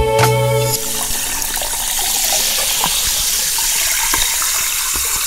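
Liquid pouring in a steady stream onto a lime half and ice in a glass: an even splashing hiss with a few small sharp ticks. A music track cuts off just under a second in, as the pour begins.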